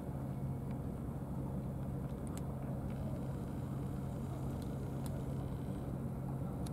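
Engine idling, a steady low hum, with a few faint ticks over it.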